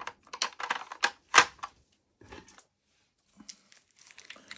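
Hard plastic PCGS coin holders (slabs) clicking and clacking against each other as they are handled, in a quick run of sharp clicks over the first second and a half. A few faint taps follow, and a soft rustle comes near the end.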